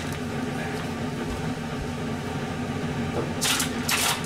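A steady low mechanical hum, with two short hissy sounds about half a second apart near the end.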